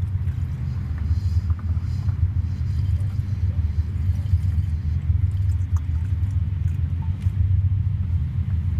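Overheated BMW E30's engine idling with a steady low rumble.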